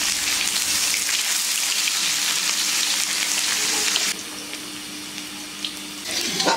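Chopped onion sizzling as it is dropped into hot oil with whole spices in a cooking pan. The loud frying hiss quietens suddenly about four seconds in and keeps sizzling more softly.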